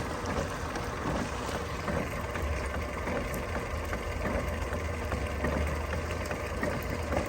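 Electric drain-cleaning cable machine running steadily, its spinning cable working at a sewer-line blockage.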